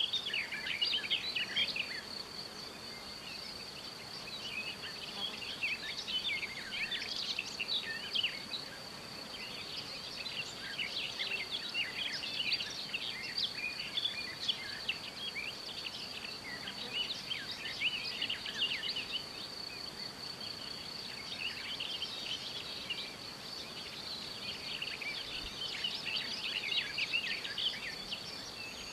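Summer meadow ambience: many small birds chirping and twittering over a steady, high-pitched insect trill.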